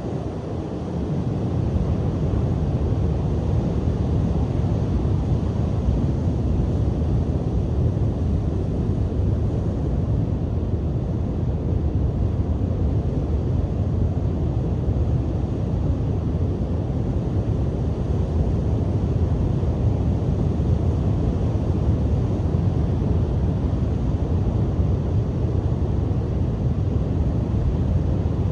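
Strong coastal wind buffeting the microphone as a steady, low rumble, mixed with surf washing on the shore. It swells about a second in, then holds even.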